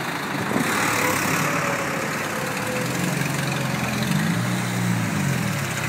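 Cars driving slowly past close by in street traffic: a rush of tyre and road noise early on, then a low, steady engine hum from about halfway through.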